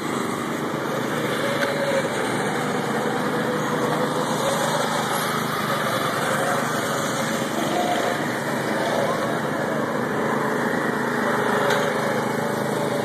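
Small gasoline go-kart engine running steadily as the kart drives around the track, its pitch wavering slightly as the throttle changes.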